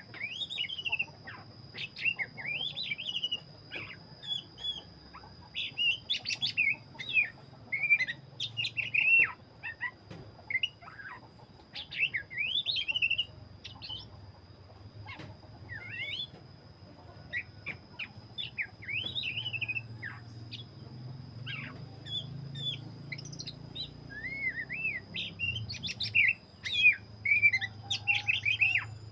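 Black-breasted Oriental magpie-robin (kacer) singing continuously in full song: a rapid, varied stream of whistled and warbled phrases with short gaps. A steady high thin whine runs underneath.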